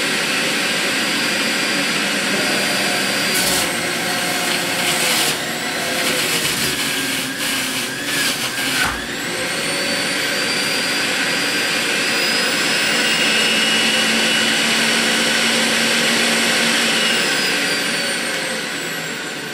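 Breville Ikon centrifugal juicer running with a high whine as a cucumber is pressed down its feed chute, with crunching while it is shredded and the motor's pitch dipping under the load about nine seconds in, then climbing back. Near the end the whine falls in pitch and fades as the motor winds down.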